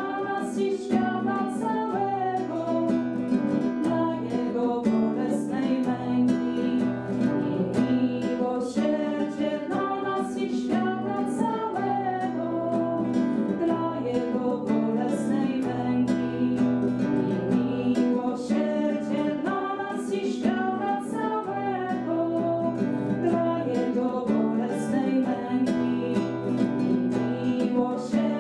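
Acoustic guitar played as accompaniment to women's voices singing a hymn.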